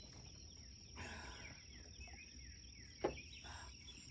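Faint outdoor lakeside ambience: a steady high thin whine under a short run of small bird chirps about a second in, and a single brief knock near three seconds.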